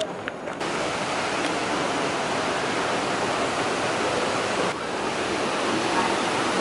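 Waterfall rushing steadily: the twin cascades of Trafalgar Falls, the water noise cutting in abruptly under a second in.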